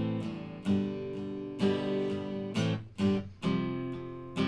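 Solo acoustic guitar playing chords about once a second, each left to ring, with a brief muted dip about three seconds in before the strumming picks up again.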